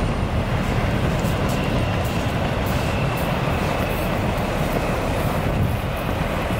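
Passenger hovercraft's engines and lift fans running steadily while it sits on its inflated skirt on the pad: a loud, even rumble and rush of air with a faint high whine over it.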